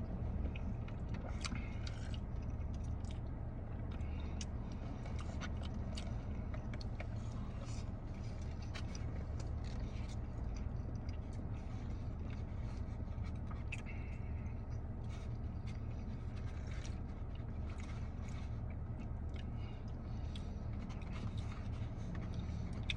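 Someone chewing and biting into a carnitas taco, with many small scattered clicks and crinkles, over a steady low hum in a car's cabin.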